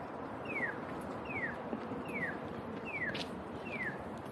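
Accessible pedestrian crossing signal chirping: one short falling chirp repeated evenly about every 0.8 s, five times, over steady street noise.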